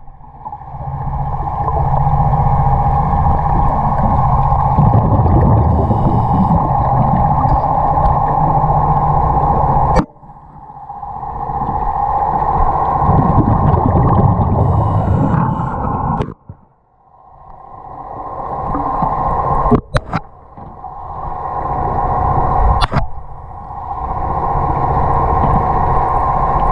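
Underwater sound picked up through a camera housing: a steady mechanical hum with surges of low rumble. Several abrupt cuts break it.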